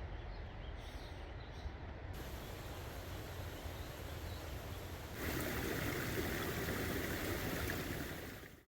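Steady rushing of a mountain creek's flowing water, with a low rumble of wind on the microphone. It changes abruptly twice, brighter about two seconds in and louder about five seconds in, then cuts off just before the end.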